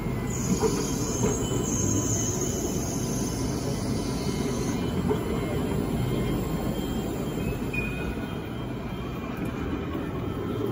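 T9 tram rolling slowly past on curved track with a steady low rumble of wheels and running gear. A high wheel squeal starts just after the beginning and stops about five seconds in.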